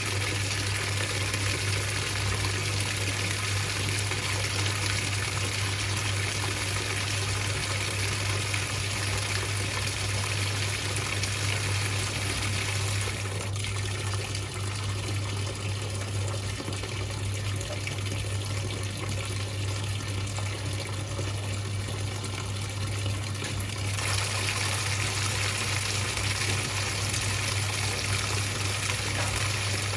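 Whirlpool 3RLSQ8033SWD top-loading washing machine filling its tub with water: a steady rush of water with a low hum under it. The sound turns duller for about ten seconds in the middle.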